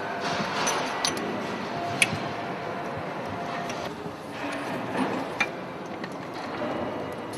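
Steady engine-room noise with a few sharp metallic clicks and clinks, about one and two seconds in and again past five seconds, from hand work on the cylinder head's stud nuts and tensioning gear.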